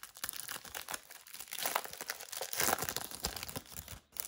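Clear cellophane wrapper of a trading-card cello pack crinkling and tearing as it is pulled open by hand, a dense crackle that is loudest about two-thirds of the way in.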